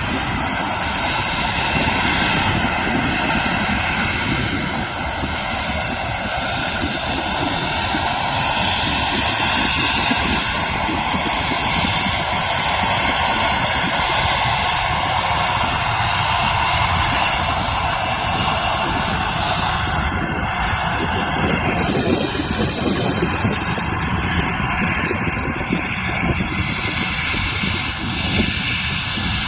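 Jet airliner engines running loud: a steady rumble with several high whining tones that shift a little about twenty seconds in.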